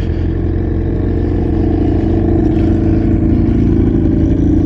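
Suzuki GSX-R1000R's inline-four engine idling steadily, picked up close by from a camera mounted on the bike.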